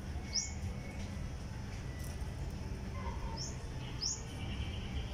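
Three short, rising bird chirps, one about half a second in and two close together near the end, over a steady low background rumble.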